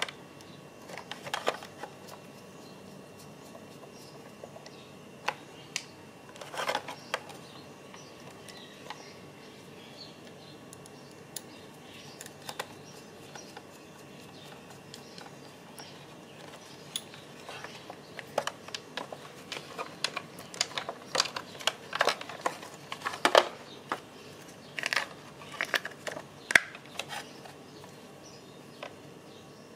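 Scattered clicks, taps and light knocks of hard plastic folding side-mirror parts being handled and fitted together by hand. They come singly at first, then in a denser run through the second half.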